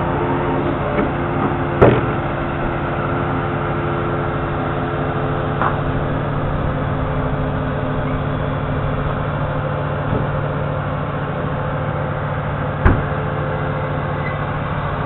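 Volvo FE truck's diesel engine running steadily, driving the HIAB crane's hydraulics while the crane lifts and swings a bulk bag of sand. Two sharp clunks come through, one about two seconds in and one near the end.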